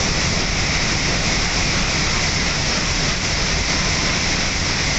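N700-series Shinkansen passing through the station at high speed, making a loud, steady rushing noise as the train runs by.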